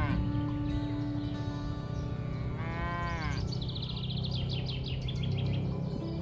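Cattle mooing, with one call that rises and then falls about three seconds in, over a steady low drone. A quick run of high bird chirps follows in the second half.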